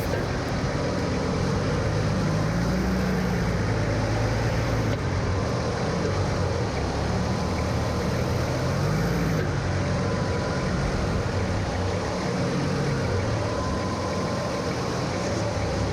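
Off-road vehicle's engine running steadily at low revs, its pitch rising and falling gently as it is driven slowly over a rocky trail.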